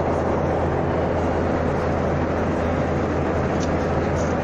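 Steady cabin noise of an airliner in flight: the even rush of the engines and airflow with a low hum beneath, heard from inside the cabin.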